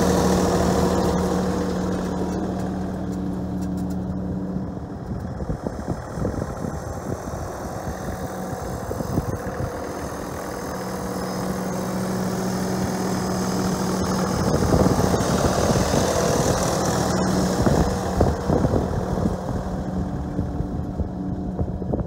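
John Deere 3046R compact tractor's diesel engine running steadily while it pulls a laser-guided box grader over infield dirt. The engine note drops back about a third of the way in, then returns. Rough, irregular crackling noise runs through the gaps and near the end.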